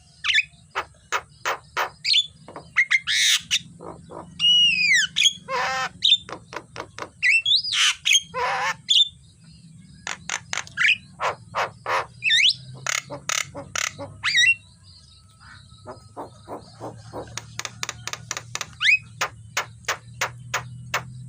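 Javan myna singing: runs of sharp clicks mixed with whistled glides and two long harsh, rasping notes, in bursts broken by short pauses.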